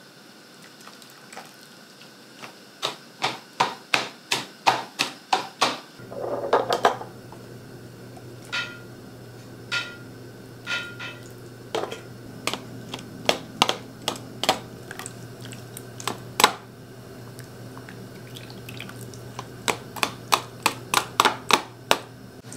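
A metal slotted spoon tapping and clinking against a stainless steel pot, a plastic canning funnel and glass jars as shredded zucchini is spooned into the jars: runs of quick taps, about three a second, with a few ringing clinks.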